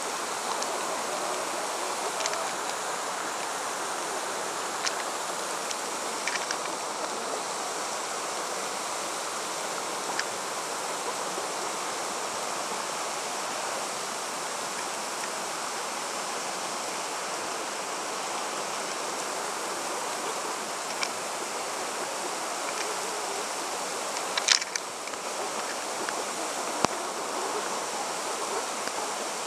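Steady rush of running water. A few light clicks sound through it, and a brief louder clatter comes near the end.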